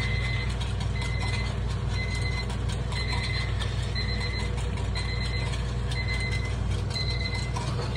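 Takoyaki batter sizzling on a hot cast-iron takoyaki griddle over a steady hum from the kitchen exhaust hood and burners, with light clicks of the metal picks on the plate as the balls are turned. A short electronic beep repeats about once a second throughout.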